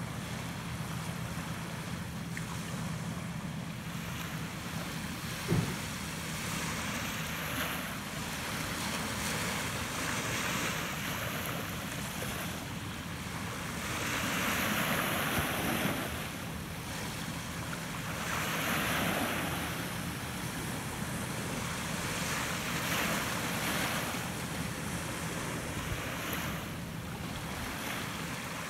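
Waves washing and wind buffeting the microphone, a steady rush that swells louder twice around the middle. A single brief knock sounds about five and a half seconds in.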